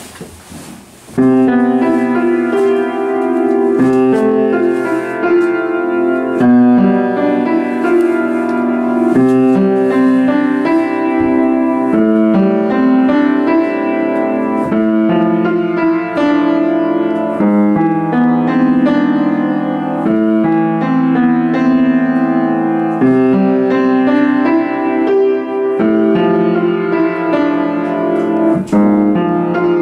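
Solo piece played on a Yamaha piano, starting about a second in.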